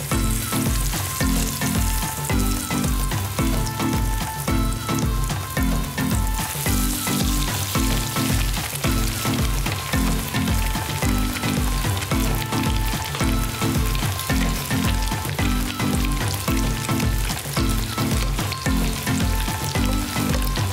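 Breadcrumbed sea bream fillets sizzling as they shallow-fry in hot oil in a frying pan, the sizzle starting as the first fillet is lowered in. Background music with a steady beat plays underneath.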